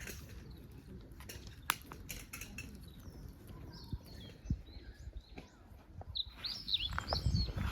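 Small birds chirping in short, quick calls, faint at first and clearer near the end, with a few scattered light clicks and knocks.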